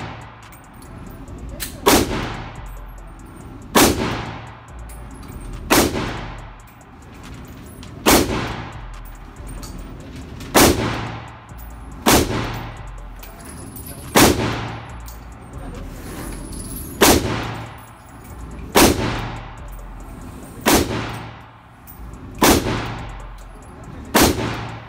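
Draco AK-pattern pistol fired in slow, single aimed shots, about one every two seconds, around a dozen in all. Each shot echoes off the walls of an indoor shooting range.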